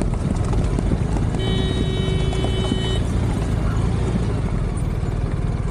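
Adventure motorcycle engine running at low speed on a muddy dirt road, with a steady rumble throughout. A steady tone sounds over it for about a second and a half, starting just over a second in.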